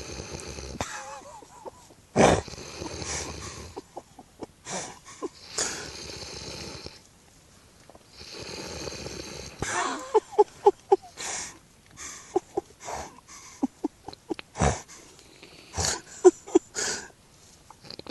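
A person snoring: long, noisy breaths with quiet gaps between them, and in the second half several bursts of quick, fluttering snorts.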